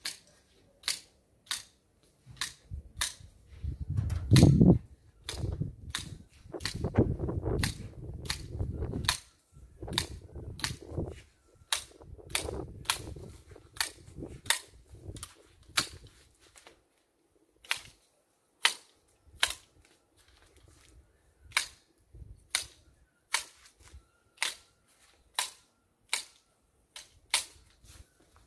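Hand pruning shears snipping through the stems of a low edging hedge: a long run of short, crisp snips, roughly one every half second to a second. A low rumbling noise rises under the snips from about three to eleven seconds in.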